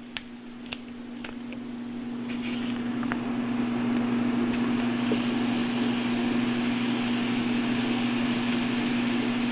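Diet Coke sizzling and hissing on the hot plates of a George Foreman electric grill, the hiss swelling over the first few seconds and then holding steady, with a few light ticks near the start and a steady low hum underneath.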